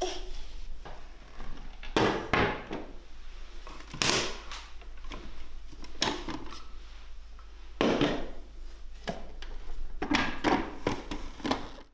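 Hard plastic clunks and clicks of a blender jug and a food-processor bowl being handled, set down and fitted onto the blender base: irregular knocks spread a second or two apart.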